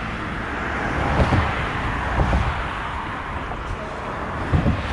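Steady road traffic noise from passing cars, with a few brief low thumps.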